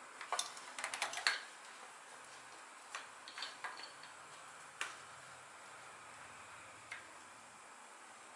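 Light clicks and taps of a motorcycle throttle-body assembly and its plastic wiring connector being handled and fitted: a quick cluster in the first second or so, then a few single clicks spaced out.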